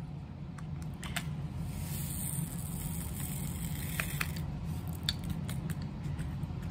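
Diamond painting in progress: a few faint, scattered clicks and light rustling as a drill pen picks up and presses resin drills onto the canvas, over a steady low hum.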